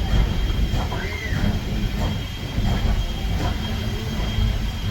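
Steam-hauled Strasburg Rail Road passenger train running along the track, a steady low rumble of wheels on rails heard from aboard.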